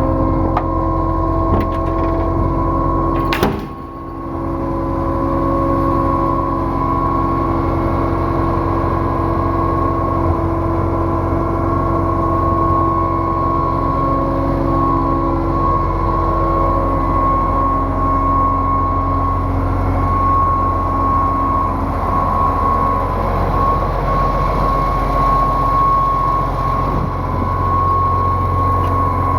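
2006 Putzmeister 32Z concrete pump truck running steadily, a low engine hum under a high steady whine, with one sharp knock about three seconds in.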